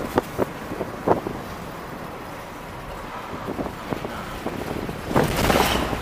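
Car cabin noise while driving in a Toyota: steady engine and road hum with wind noise, a few short knocks in the first second or so, and a louder rush of noise about five seconds in.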